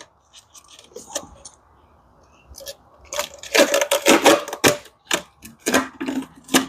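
Masking tape being peeled off and crumpled in the hands, in irregular bursts of ripping and crinkling from about three seconds in, after a few faint handling clicks.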